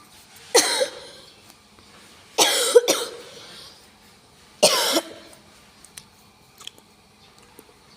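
A person coughing three times, short harsh coughs about two seconds apart.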